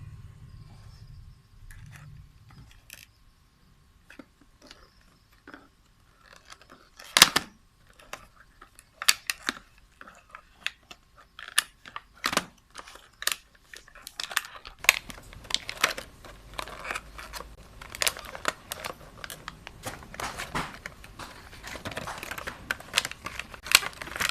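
Charger packaging being handled and opened by hand: irregular crinkling, tearing and sharp clicks. Faint clicks at first, with the handling becoming busy about seven seconds in, where the loudest click falls.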